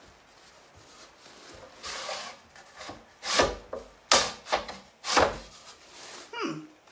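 Sliding clamp pieces of a Griffin Grip being pushed and scraped by hand across its wooden plate: a series of rubbing scrapes and knocks, loudest about halfway through. The clamps are sticking and won't slide in to tighten.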